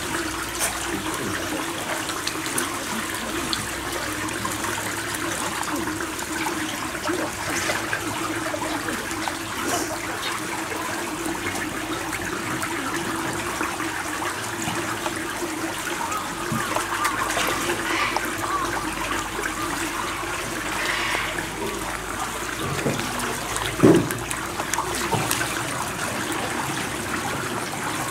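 Water running and trickling steadily in a shallow pool, with a steady low hum beneath it and one knock near the end.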